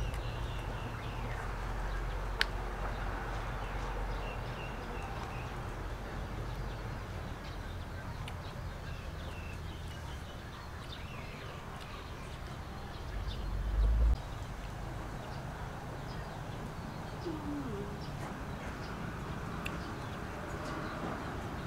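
Outdoor ambience of birds calling and chirping in short scattered notes, over a low rumble that swells briefly about thirteen seconds in.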